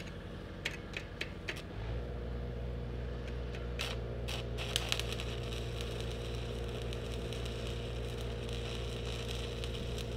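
Stick welding with a 3/32" 7018 rod: a few scratches and taps while striking the arc, then the arc burning with a steady crackle from about two seconds in. Under it runs the steady low hum of the engine-driven Lincoln welder, which steps up as the arc takes the load.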